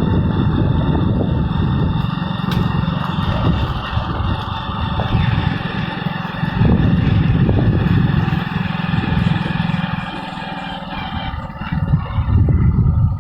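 An engine running close by, steady and loud, its level swelling and dipping a little as it works.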